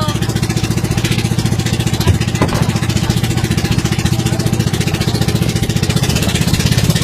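A small engine running steadily with a fast, even pulse, loud and close.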